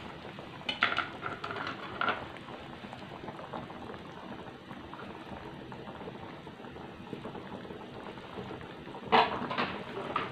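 Asam pedas curry simmering in a wide metal pan, bubbling steadily. A few clinks and knocks of kitchen utensils come about a second in, and a louder clatter near the end.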